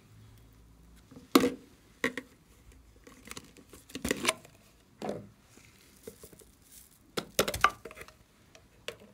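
Plastic slime tubs and lids being handled beside a glass dish: a string of sharp clicks and knocks, about a dozen over several seconds, with light rustling between them.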